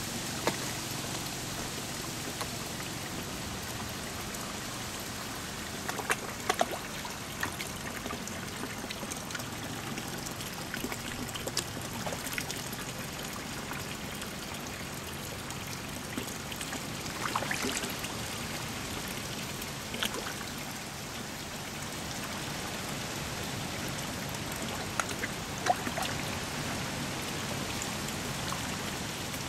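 Steady trickle of water pouring into a koi pond. Every few seconds there is a short, sharp splash or smack as koi take floating food pellets at the surface.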